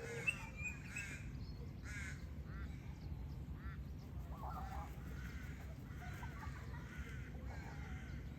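Birds giving many short, harsh calls one after another, over a steady low rumble.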